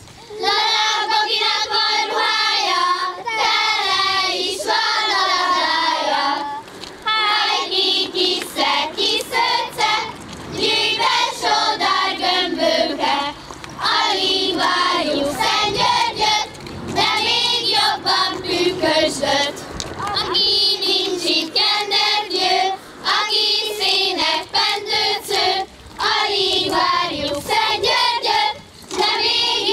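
Group of girls singing a Hungarian kiszehajtás folk song together, in phrases of about three seconds with short breaks between them.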